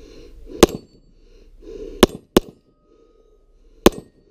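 Semi-automatic pistol fired four times: a single shot, a quick pair about a third of a second apart, then a last shot about a second and a half later.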